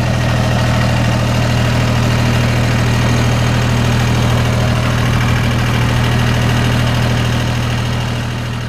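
Jinma tractor's diesel engine idling steadily, running again now that the loose clutch interconnect has been reconnected.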